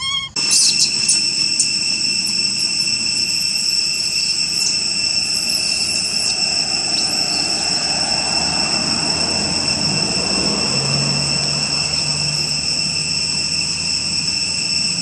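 A steady, high-pitched insect drone that holds unchanged, with faint high chirps in the first few seconds and a faint low hum joining about ten seconds in.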